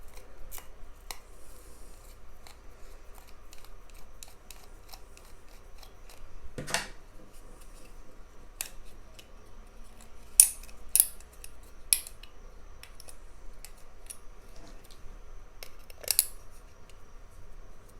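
Small hand tools working on a selfie drone's housing: irregular light clicks and scrapes as a tiny screw is taken out and the shell is worked loose, with a longer scrape about a third of the way in and a few sharper snaps in the second half.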